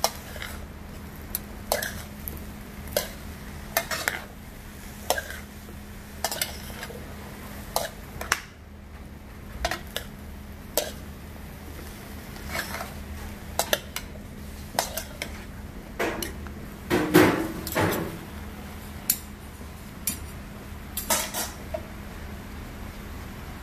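A large metal spoon and a ladle stirring and turning a big batch of zucchini stir-fry in a wide metal pan, clinking and scraping against the pan about once a second, with a louder run of scrapes about two-thirds of the way through. A steady low hum runs underneath.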